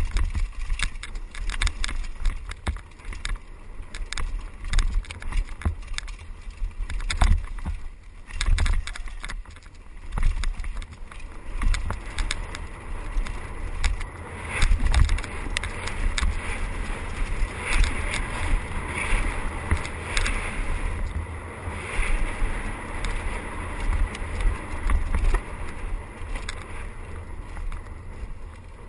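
Mountain bike descending a dirt trail at speed: wind buffeting the helmet camera's microphone with a constant low rumble, tyres rolling over dirt, and frequent clattering knocks from the bike over bumps and roots. The hiss of the tyres grows brighter for a stretch in the middle.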